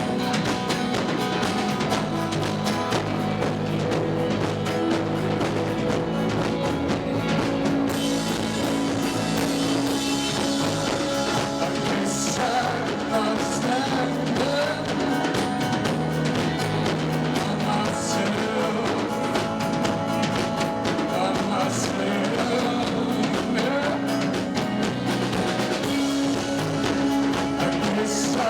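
Live rock band playing: drum kit, guitar and singing together, in a rough, poor-quality recording.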